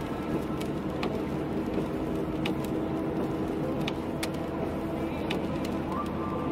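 A car driving on a wet road, heard from inside the cabin: steady engine and tyre noise with scattered sharp ticks.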